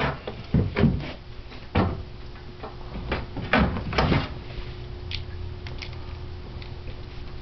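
Clunks and taps of small metal parts and tools being handled as the float bowl is worked off a lawnmower carburetor: a run of sharp knocks in the first few seconds, then a few lighter ticks, over a faint steady hum.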